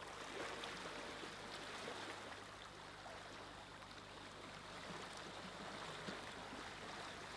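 Muddy, fast-flowing river water rushing, a steady faint wash of noise.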